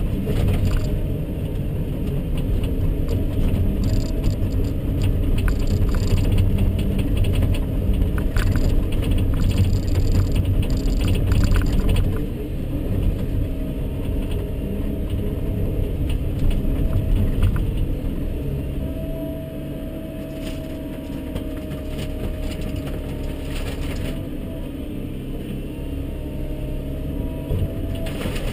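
Volvo EC140BL excavator's diesel engine and hydraulics working, heard from inside the cab as the machine swings and positions its bucket, with occasional clanks and rattles. The engine is loudest for the first half, then eases to a lower level with a steady hydraulic whine.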